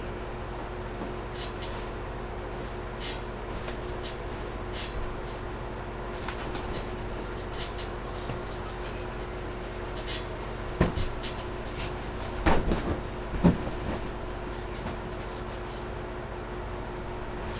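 Faint creaks and ticks from a large latex balloon as a person shifts on top of it, with a few louder short squeaks and bumps from the rubber in the middle of the stretch, over a steady low hum.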